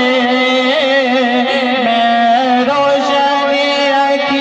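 A man sings a Punjabi devotional naat into a microphone, amplified over a sound system. He holds long notes and ornaments them with wavering turns.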